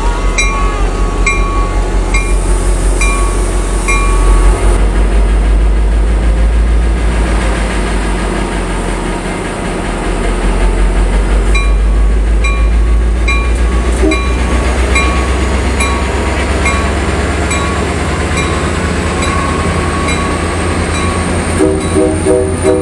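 A Coaster EMD F40PHM-2C diesel locomotive's engine running with a deep steady rumble, growing louder partway through as the train starts to move out. Grade-crossing bells ding about twice a second, fading for several seconds in the middle.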